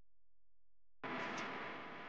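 Near silence, then about a second in a sudden noisy sound effect starts and runs on: the sound effect of an animated subscribe-button graphic.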